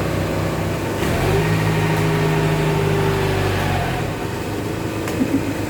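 Horizontal cardboard baling press running: a steady machine hum that gets fuller and louder about a second in, then eases back a little near four seconds.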